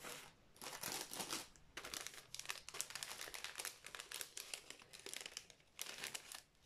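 Dry silk rods and tussah silk fibres rustling and crinkling as they are handled and laid across one another on a net. The sound is faint, a quick run of short rustles with a few brief pauses.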